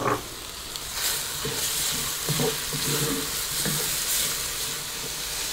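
Meat with tomato paste and paprika powder sizzling in a Dutch oven while it is stirred, the paste and spice being lightly roasted. The sizzle gets louder about a second in.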